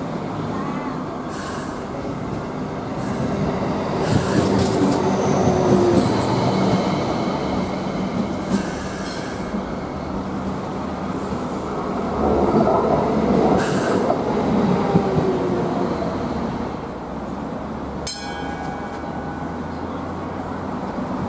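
Hong Kong MTR Light Rail cars: one stands humming at the platform while another runs in on the next track, steel wheels squealing at moments as it rolls and stops. There is a sharp click near the end.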